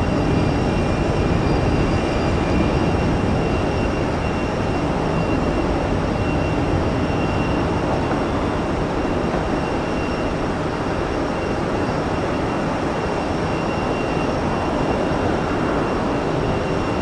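Boeing 767 airliner's jet engines at takeoff power as it climbs away after departure: a steady roar that slowly fades.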